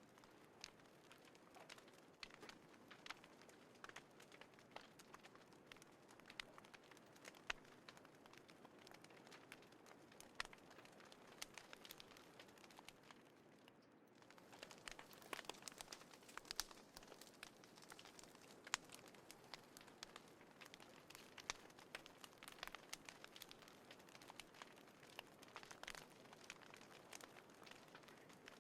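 Small wood fire crackling faintly, with irregular sharp pops and snaps over a soft steady hiss; it eases for a moment about halfway through, then picks up again.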